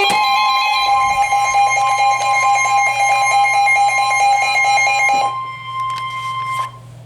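Emergency Alert System attention signal: a steady, shrill two-tone alarm. About five seconds in the lower tone drops out and the higher tone carries on alone for more than a second before it stops.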